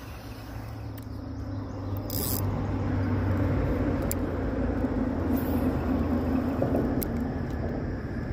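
A low, steady engine drone with a humming pitch that swells about two seconds in and then holds.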